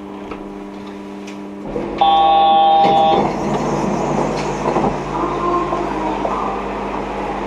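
Yurikamome rubber-tyred automated guideway train running as it slows into a station. A loud steady multi-pitched tone sounds about two seconds in and lasts just over a second, followed by rougher rolling noise and a steady low hum.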